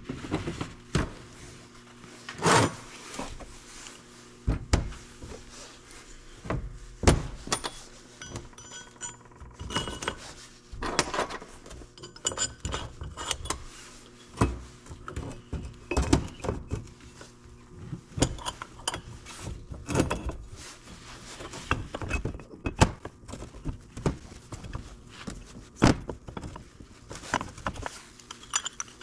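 Irregular metallic clinks and knocks of hand tools, bolts and a steel bracket being handled while fitting a car's AC compressor bracket, over a faint steady hum.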